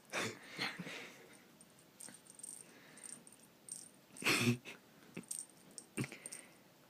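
Light rattling and jingling of small hard objects, with a few scattered knocks; the loudest clatter comes a little past four seconds in.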